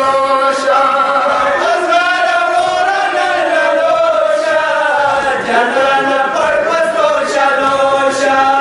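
Men chanting a noha, a Shia lament for Muharram, together into a microphone, in long held melodic notes that bend slowly in pitch.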